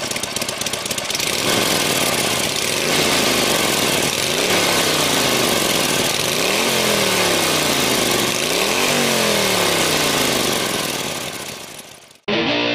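Harley-Davidson Iron 883's air-cooled V-twin running and being revved about three times. Each time the pitch climbs quickly, then falls away slowly. The engine sound fades out near the end.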